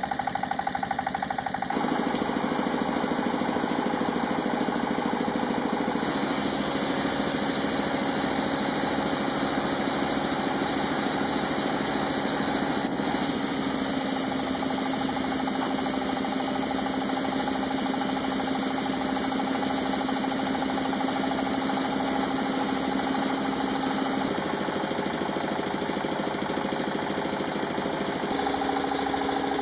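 Maize grinding mill running: a single-cylinder stationary engine chugging steadily with a fast, knocking pulse while the mill grinds maize. The tone of the machinery changes abruptly several times.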